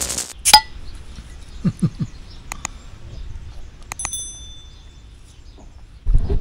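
Handling noises: several sharp clicks and knocks, the loudest about half a second in, and a short metallic ring about four seconds in.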